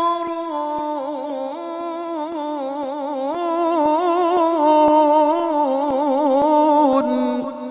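Male qari's voice in Quran tilawah, holding one long melismatic note with quick wavering ornaments and small steps in pitch, then dropping lower about seven seconds in: the drawn-out close of a verse.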